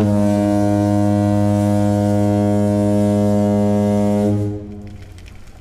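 A loud, low, horn-like tone: one steady held note for about four seconds, which then dies away.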